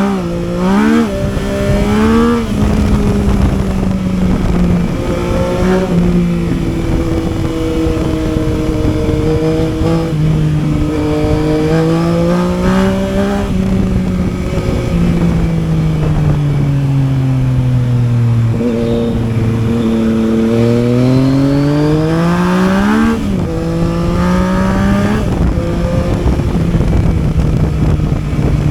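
Yamaha Tracer 900's three-cylinder engine under way: the revs climb and drop sharply a few times in quick succession at the start as it shifts up through the gears, then the engine pitch rises and falls slowly with the throttle. About two-thirds of the way through it climbs again and drops at another shift, with wind rushing past throughout.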